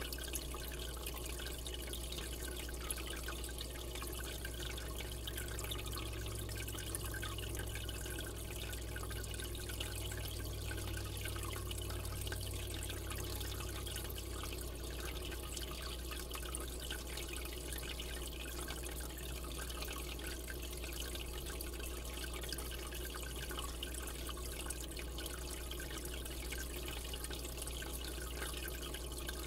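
Aquarium water circulating: a steady trickling and bubbling of moving water, with a low steady hum underneath.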